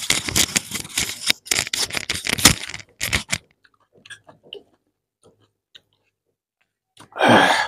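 Close-miked chewing and crunching of a mouthful of rice with fried radish greens, loud and fast for about three seconds, then quieter with scattered soft mouth clicks. A short loud mouth noise near the end.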